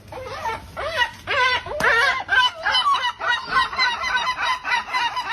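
Chickens clucking and cackling in a fast run of short calls, about three a second, as the birds set on a cat.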